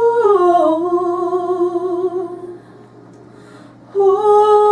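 A wordless held 'ooh' sung with vibrato by gospel choir singers: one note that slides down and then holds for about two and a half seconds, then a second, shorter held note near the end.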